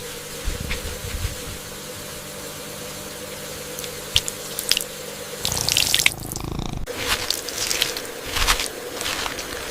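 Water running at a sink, steady at first, then splashing with a string of short knocks and clicks from about five seconds in, as if something is being washed under the tap.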